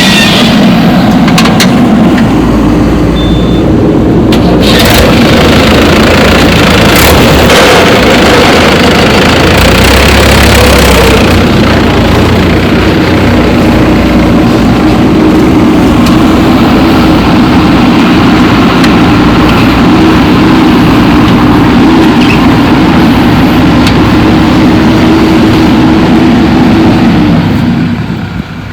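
Heavy diesel engine of construction or farm machinery running steadily, with a few sharp knocks in the first ten seconds. The engine sound falls away near the end.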